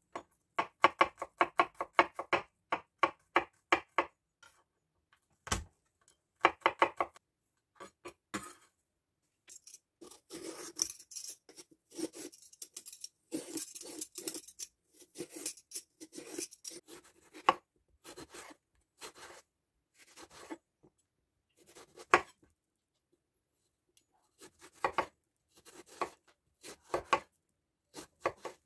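A chef's knife chops garlic cloves on a wooden cutting board in quick strokes, about four or five a second. Then a vegetable peeler scrapes the skin off an eggplant for several seconds. Near the end come single knife cuts through the peeled eggplant onto the board.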